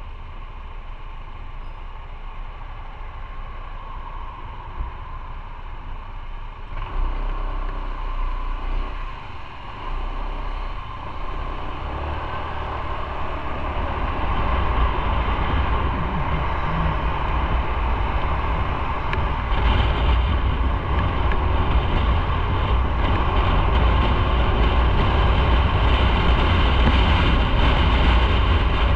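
Motorcycle riding in city traffic: engine running with road and wind noise, getting louder about a quarter of the way in and again around halfway as the bike pulls away from a stop and picks up speed.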